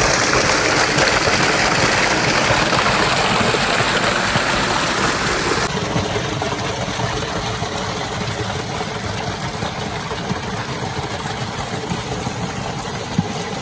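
Water from a tubewell outlet pipe gushing into a concrete tank: a loud, steady rush of splashing water. The sound shifts abruptly about six seconds in, then carries on.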